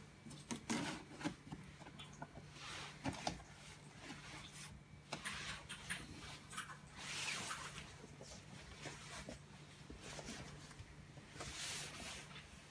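Corrugated cardboard display box being handled by gloved hands: the dividers and panels are pushed and adjusted, giving scraping rubs and small clicks and taps, with a cluster of taps about a second in and longer rubbing scrapes around seven and twelve seconds in.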